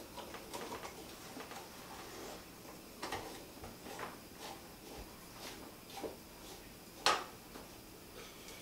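Small clicks and taps of a brass hose fitting and plastic tubing being handled and screwed together, with one louder click about seven seconds in as pliers are brought to the fitting.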